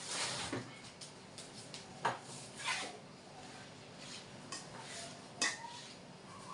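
Light tabletop handling clatter: a short rustle at the start, then a few brief knocks of a plastic food cover and dishware being moved and set down, the sharpest about two seconds in and again near the end.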